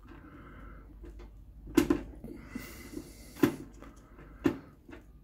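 Fingers pushing wire terminals onto a small plastic connector block: light rustling handling noise with three sharp plastic clicks or taps.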